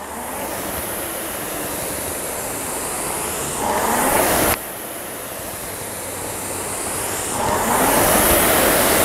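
Concept2 indoor rower's air-resistance flywheel fan whooshing as the handle is pulled through slow strokes, the rush swelling with each drive, twice, and dropping away sharply after the first.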